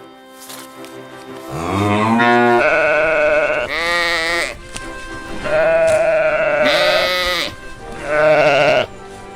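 A farm animal bleating about six times in quick succession, each call quavering in pitch.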